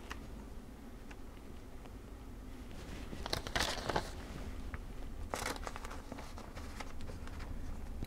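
Paper and a carbon sheet being fed into a Remington No. 10 typewriter's platen: a quiet rustle of paper with a few light clicks as the platen is turned, in two short spells about three and five seconds in.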